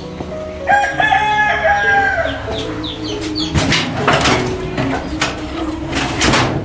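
A rooster crows once, starting about a second in, with chickens clucking after it.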